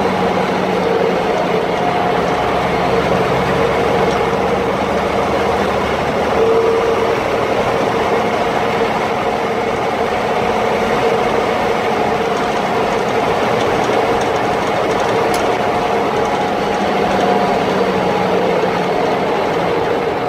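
M35A2 2½-ton army truck driving, heard from inside the cab: its multifuel diesel engine and drivetrain make a loud, steady drone with a few whining tones held throughout.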